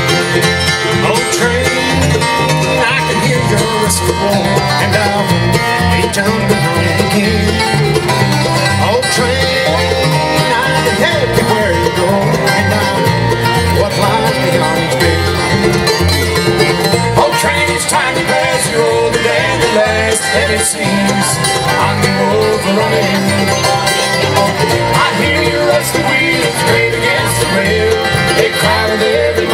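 Live acoustic bluegrass band playing steadily: acoustic guitars, mandolin, fiddle, dobro and upright bass together.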